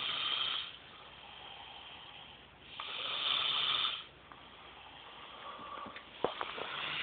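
Slow, breathy snoring from a sleeper, three snores about three seconds apart.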